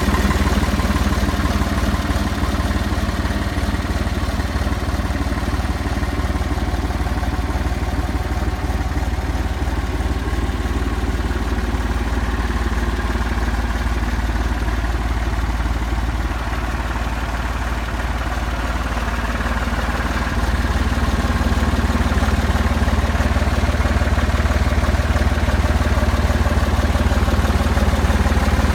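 John Deere 350 crawler bulldozer's diesel engine running steadily, stepping up a little in level about two-thirds of the way through.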